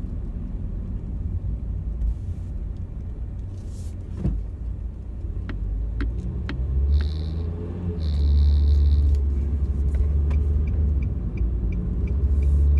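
Car cabin noise: the engine and road rumble steadily, growing louder about eight seconds in, with a few sharp clicks near the middle. In the last few seconds a turn signal ticks at a steady quick pace.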